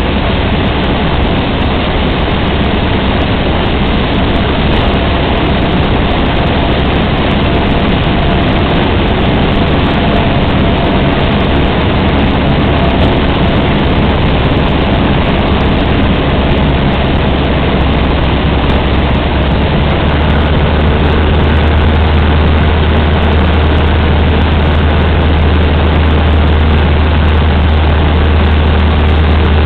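Cessna 150's four-cylinder Continental O-200 engine and propeller droning steadily in flight, the low part of the drone growing stronger about twenty seconds in.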